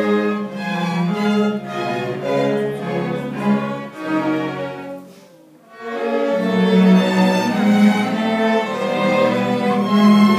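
A string orchestra of violins, cellos and double basses playing together. About halfway through the music dies away briefly, then the full ensemble comes back in.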